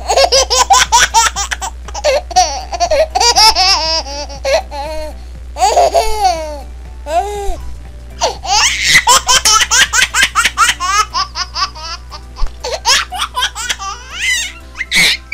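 High-pitched children's laughter in several quick peals, with background music underneath.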